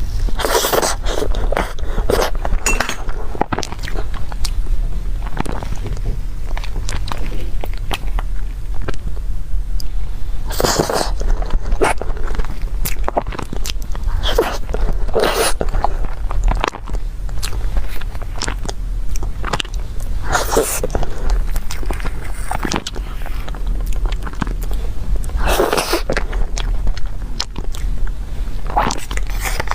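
Close-miked eating of a coffee soy-milk box cake: soft chewing and wet mouth sounds with many small clicks, and a louder sound every five seconds or so.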